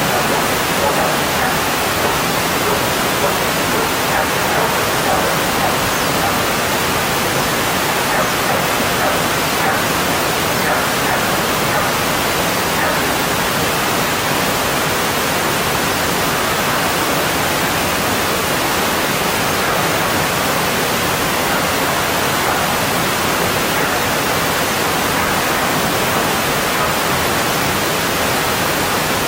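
Mountain stream water rushing, a steady full rush without breaks.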